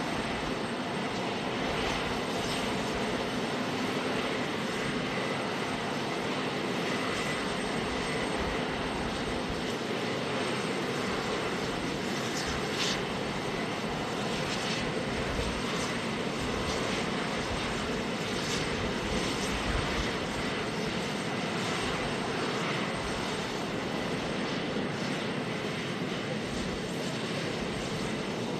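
Aircraft turbine engines running, a steady rushing noise with a thin high whine.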